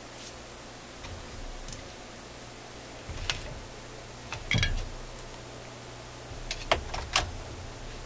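Small tools and parts being handled on a workbench: a few sharp clicks and knocks. The loudest, about halfway through, carries a brief metallic ring, and a quick cluster of clicks follows near the end.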